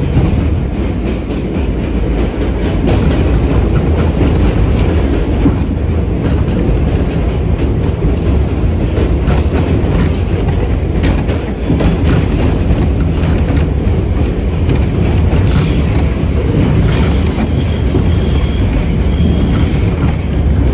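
R68 subway car running at speed, heard from on board: a steady rumble with the clatter of wheels over rail joints. Near the end the wheels squeal with high ringing tones for a few seconds.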